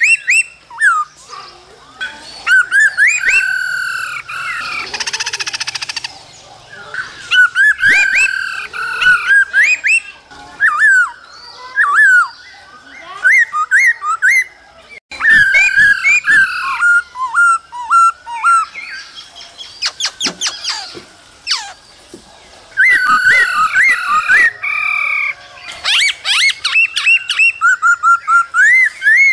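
Black-throated laughingthrush singing: a long, varied run of whistled phrases whose notes slide up and down, broken by fast chattering trills and brief pauses.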